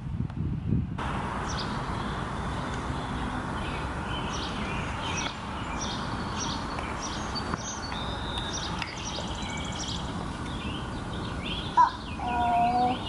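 Back-yard ambience: several songbirds chirping over a steady background hiss. Near the end a small child gives a short high-pitched vocal cry.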